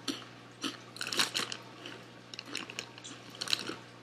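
A person chewing baked Flamin' Hot Cheetos with the mouth closed, giving crisp crunches in irregular clusters.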